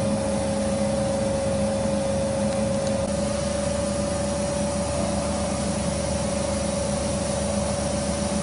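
Edgebanding machine running idle with no panel passing through: a steady motor hum with a constant whine.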